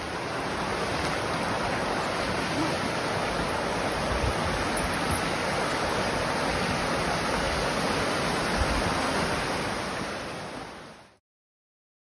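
Steady rushing of a rocky mountain creek pouring over a small cascade, fading out near the end.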